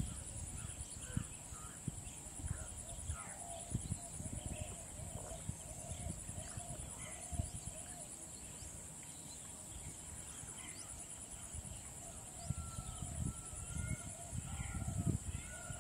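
Several birds calling with many short repeated notes over a steady high-pitched insect drone, with scattered low thumps.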